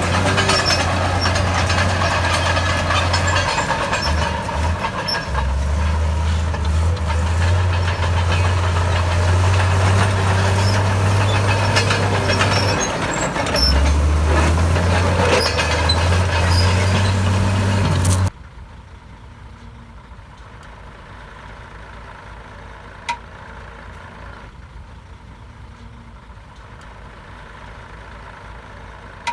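Heavy diesel engine of earthmoving machinery working, its low engine note stepping up and down as the load changes. After about 18 seconds the sound cuts off suddenly to a much quieter steady background, broken once by a sharp click.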